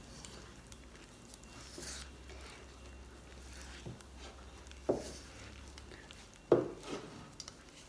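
Wire whisk stirring a thick glutinous rice flour and water mix in a plastic bowl, with soft scraping, and two sharper knocks against the bowl, about five seconds in and again a second and a half later.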